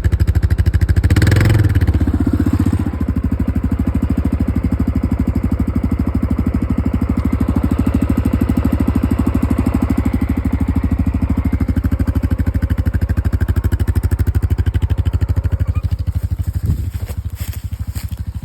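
ATV engine idling steadily, with a brief louder rush about a second in and a short knock near the end.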